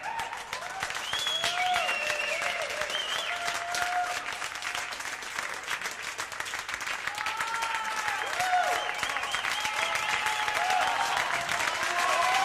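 Live club audience applauding, with whoops and whistles rising over the clapping; it grows louder toward the end.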